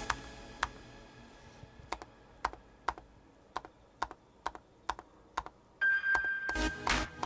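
Single keystrokes on the butterfly keyboard of a 2016 13-inch MacBook Pro, about ten separate clicks roughly half a second apart, as the faulty R and then Y keys are pressed over and over to test them. Near the end a steady high tone sounds briefly and background music comes in.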